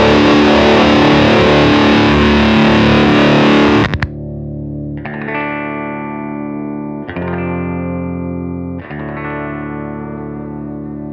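Electric guitar through an EarthQuaker Devices Tone Reaper silicon-germanium hybrid fuzz pedal. A thick, saturated fuzz riff stops abruptly about four seconds in. Then come three sustained chords struck about two seconds apart, each left to ring out in a cleaner, lighter-gain fuzz tone.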